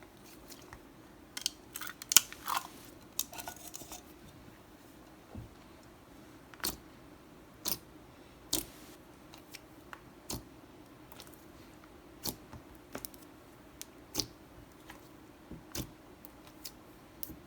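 Hands stretching and pressing a thick, stretchy slime, giving scattered small clicks and pops, with a quick crackly run about two to three seconds in.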